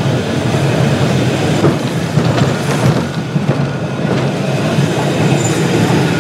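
Glasgow Corporation double-deck tram running past close by, its steel wheels rumbling steadily on the street track, with a few sharp clicks over the middle couple of seconds.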